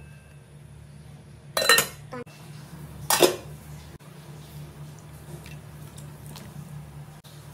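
A metal utensil clinking against a stainless steel cooking pot twice, about a second and a half apart, each strike ringing briefly, with a few faint ticks after and a low steady hum underneath.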